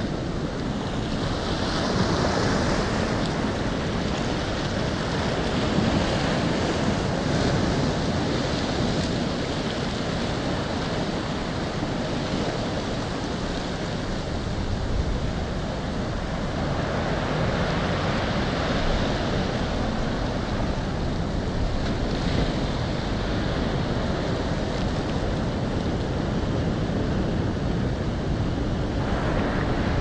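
Ocean surf breaking and washing in: a steady rush of water that swells in several surges.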